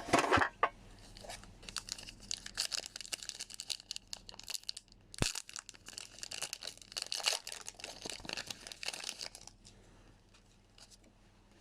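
Foil wrapper of a Pokémon Rebel Clash booster pack being torn open and crinkled: a run of crackly tearing and rustling for several seconds that dies away near the end.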